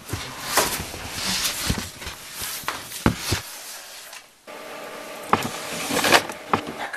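Handling noises of unpacking: scattered knocks, clicks and rustles of things being moved in and out of cardboard boxes, then a wooden dresser drawer being pulled open, with the sharpest knocks near the end.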